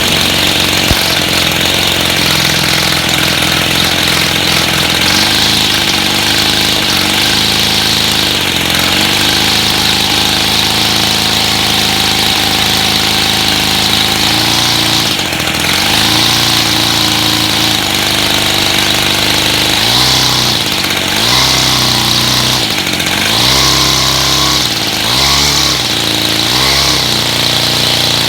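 Petrol brush cutter (grass cutter) engine running steadily after its dirty, clogged carburetor was cleaned. After about twenty seconds it is revved up and down several times.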